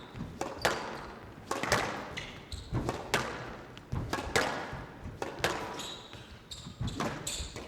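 Squash rally: a squash ball struck by rackets and hitting the court walls, with sharp hits about once a second, each with a short echo.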